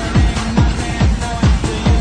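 Electronic dance music with a fast, steady kick-drum beat and short synth notes.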